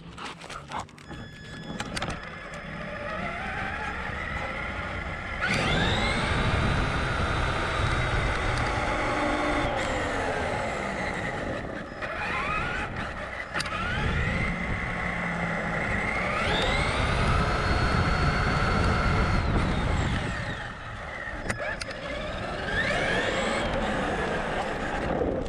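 Traxxas Summit RC monster truck's electric motor and gearbox whining, the pitch rising sharply each time it accelerates (about five seconds in, and again twice in the middle) and sinking as it slows, over a steady rumble of the tyres on asphalt heard from the onboard camera. The first few seconds are quieter, while the truck stands still.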